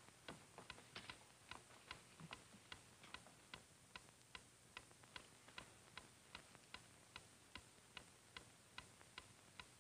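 A clock ticking faintly and evenly, about two and a half ticks a second.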